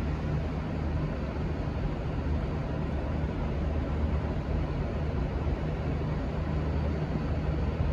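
Diesel locomotive engine running steadily, a constant low, droning hum with a rumble of noise over it.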